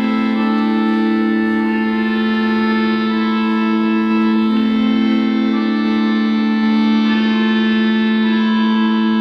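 Music: slow, sustained organ chords over a held low note, the upper notes shifting every second or two.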